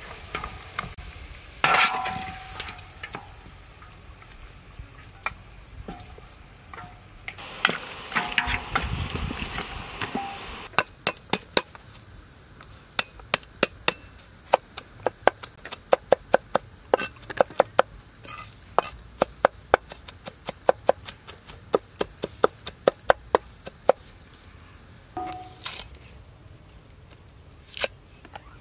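A metal spatula scraping and clanking around a large metal wok, one clank ringing briefly. About a third of the way in this gives way to a cleaver chopping on a chopping board, sharp knocks about three a second, thinning out near the end.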